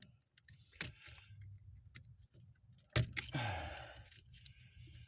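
Plastic wiring-harness connectors under a car dashboard being handled: scattered clicks, a sharper click about three seconds in, then a second of rustling and scraping as the wires are moved.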